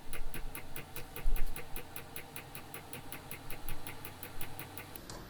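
Diesel heater fuel dosing pump ticking in a fast, even rhythm of about four to five clicks a second during start-up, over the steady hum of the heater's combustion fan, which has just switched on. There is a low thump about a second in.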